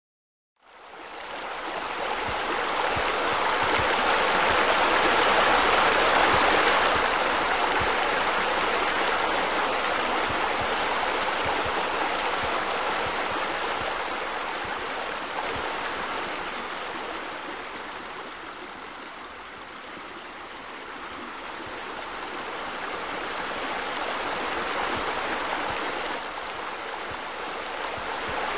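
Steady rush of splashing water from a pool's water features, such as a spa spillover and a sheer-descent wall waterfall. It starts abruptly about half a second in, then slowly swells, fades somewhat about two-thirds of the way through, and rises again.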